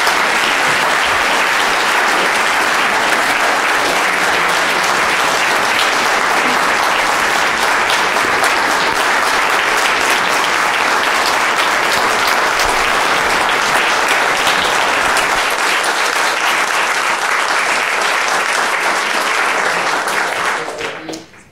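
An audience applauding, a dense steady clatter of many hands clapping, fading out quickly near the end.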